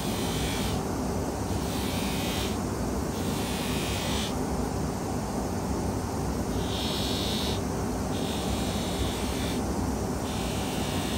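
Polishing machine's cloth mop spinning with a chrome-plated steel tube held against it, a steady motor hum with a higher hiss that comes and goes every second or so. This is the final mop, taking off the darker burn left where the part sat in the chrome tank a touch too long.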